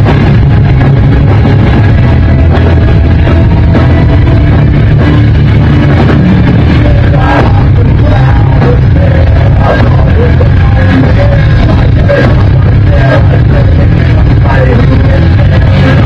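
Rock band playing live with heavy bass and guitar, recorded so loud that it runs at full scale throughout. A singer's voice comes in about halfway through.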